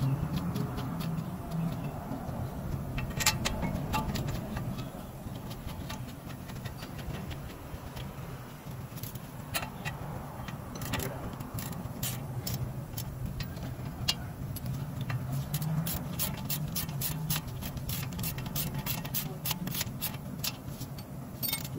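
Hand tools and metal parts clicking and clinking while a car's front brake and suspension are worked on, over a steady low hum. The clicks are scattered at first and come thick and fast in the second half, sometimes two or three a second.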